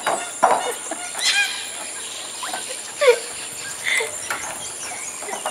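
Juvenile proboscis monkeys squeaking during rough play: a few short, high calls that fall in pitch, with a steady high insect drone behind them.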